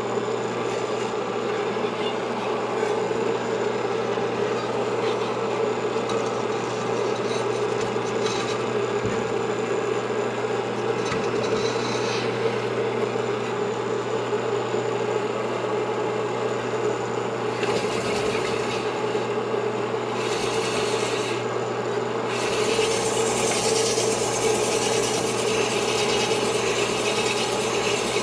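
Sunnen honing machine running while a Yamaha 250 DT-2 MX two-stroke cylinder is stroked back and forth over the spinning mandrel, the honing stones rasping steadily in the bore over a constant motor hum. The rasp gets louder and brighter about 22 seconds in.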